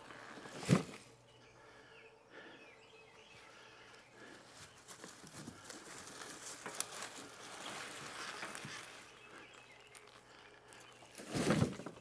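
Bunches of harvested elephant garlic being handled: leafy stalks rustling as they are lifted and dropped into a bin, with a sharp thump about a second in and a louder rustling thud near the end.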